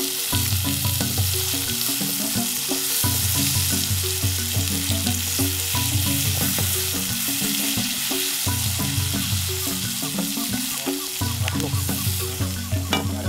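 Genjer greens sizzling as they stir-fry in a wok over a wood fire, turned with a wooden spatula, with a few sharp scrapes near the end. Background music with a steady beat plays underneath.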